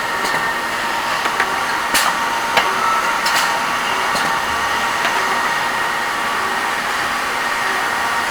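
Pneumatic drilling and tapping machine running: a steady air hiss with a faint high whine, and a few sharp clicks about two to four seconds in.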